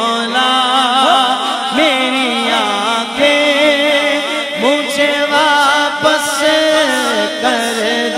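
Male naat reciter singing a long, ornamented wordless phrase into a microphone over a PA, with no instruments. A second voice holds steady notes beneath the moving line in places.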